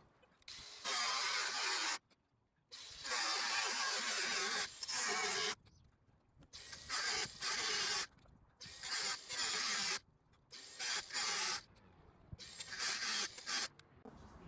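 Jigsaw cutting through the van's sheet-metal roof in about six bursts of one to three seconds, stopping and starting between them. The saw was bouncing around all over the place as it cut.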